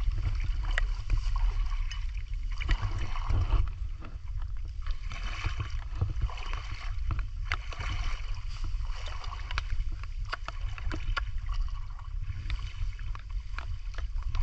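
A person wading through shallow muddy water, legs sloshing and splashing irregularly with each step, over a steady low rumble of wind on the microphone.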